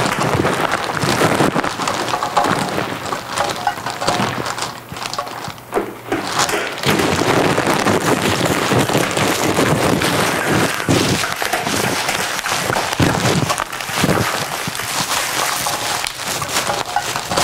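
Green plastic PET bottle squeezed and crinkled in the hands: a dense run of crackling and crumpling with a short lull about five seconds in.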